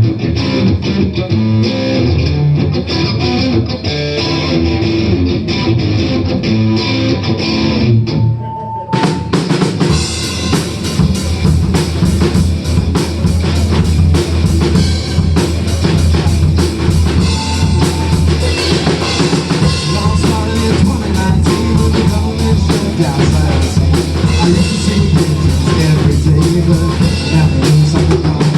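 Instrumental intro of a rock song, played by a band: guitar leads at first, then drums and bass come in about nine seconds in and the full band plays on with a steady beat.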